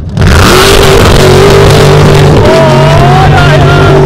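Off-road 4x4 engine running flat out at high, steady revs close by while it throws sand, coming in suddenly just after the start. A higher tone rises in pitch over it in the second half.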